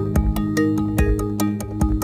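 Background music with a steady beat over sustained chords.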